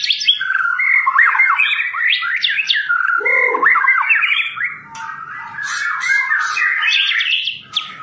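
White-rumped shama singing a long, varied song of quick whistled notes that sweep up and down, with a short lull about five seconds in.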